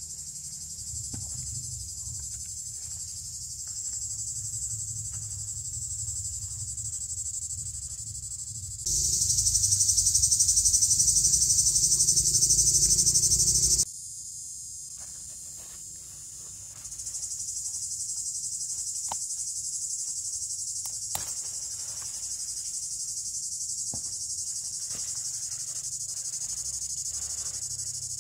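Steady high-pitched insect chorus. It turns abruptly much louder about nine seconds in and drops back about five seconds later. Scattered soft clicks and rustles sit over a low rumble.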